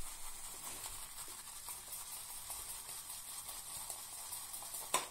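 A wet boar-bristle shaving brush (Omega 81151) swirled on shaving soap in a lathering bowl, a soft steady crackle of bristles and forming lather. There is a sharp click near the end.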